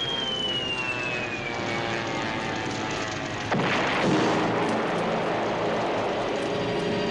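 Falling whistle of an incoming projectile, dropping steadily in pitch, then a sudden explosion about three and a half seconds in. A steady drone runs underneath.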